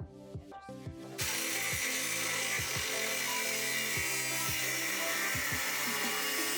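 Background music with a steady beat. About a second in, a power tool starts cutting or grinding flat steel bar stock: a steady harsh noise that runs on under the music.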